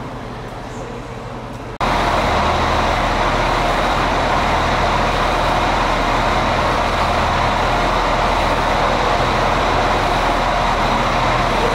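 Irish Rail train running steadily: a loud, even low hum with a thin high whine above it. A quieter steady background cuts off abruptly about two seconds in, and the train sound comes in at once.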